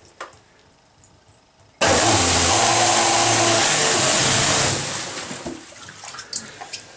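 A 53 mm electric jet drive unit with a big brushless motor, run submerged in a bathtub. It cuts in suddenly about two seconds in, with a steady motor hum under loud churning water, runs for about three seconds, then dies away to sloshing water.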